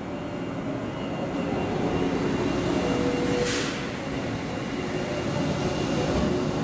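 JR 651 series limited-express electric train pulling out slowly along the platform, its running rumble and motor tones growing louder as it draws near. A brief hiss comes about three and a half seconds in.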